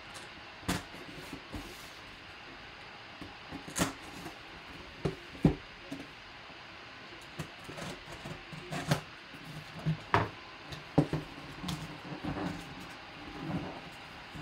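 Packing tape on a cardboard box being slit with a knife, with scattered sharp knocks and short scrapes as the box is handled and its flaps are pulled open near the end.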